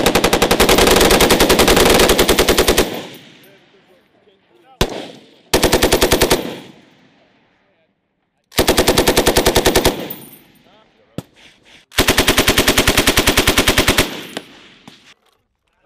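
Belt-fed machine gun firing automatic bursts at roughly ten rounds a second. First comes a long burst of about three seconds, then a single shot, a short burst, and two more bursts of a second and a half to two seconds. Each burst trails off in a rolling echo.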